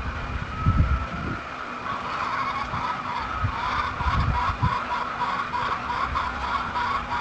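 Chickens calling in a run of short repeated notes that begins about two seconds in, over an irregular low rumble of wind on the microphone.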